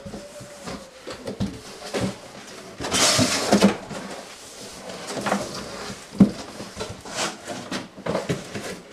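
Cardboard shipping box being handled and opened, with scraping and rustling of cardboard. A longer, louder scrape comes about three seconds in, and a few short knocks follow.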